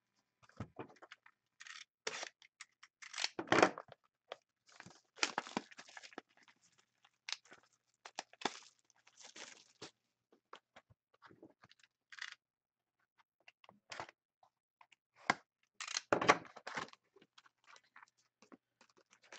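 Shrink-wrap being torn off a sealed SPx hockey card box and the cardboard box opened and handled: irregular tearing, crinkling and scraping, loudest about three and a half seconds in and again about sixteen seconds in.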